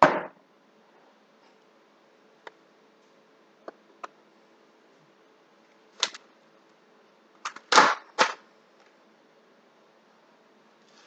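Short hissing bursts of spray paint, each a fraction of a second: one at the start, one about six seconds in, and three close together around eight seconds in, which are the loudest. A few faint ticks fall between them.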